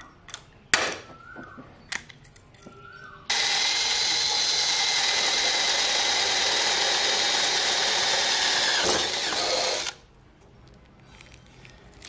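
Stanley FatMax cordless drill boring a hole through an aluminium flat bar on a polycarbonate door panel. It starts about three seconds in, runs at a steady pitch for about six and a half seconds, then sags slightly and stops. A few sharp knocks and clicks come just before it starts.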